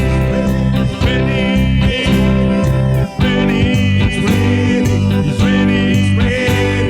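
A worship band playing a gospel song: a singer over guitar and bass, with a steady drum beat.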